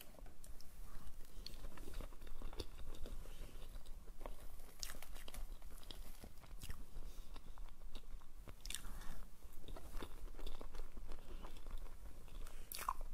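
Close-miked eating sounds of a soft mousse cake: a metal spoon scooping into the cake, and wet mouth sounds of chewing with small irregular clicks and smacks.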